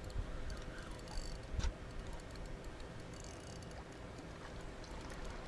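Quiet night ambience on the water: a steady low hiss with a few faint clicks and a soft knock about a second and a half in.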